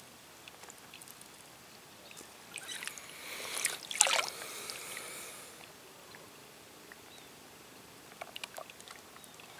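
A fishing pole swung out to cast: a swishing rush that swells from about two and a half seconds in, with a sharp little splash about four seconds in as the baited hook and float drop into the water. A few faint ticks near the end.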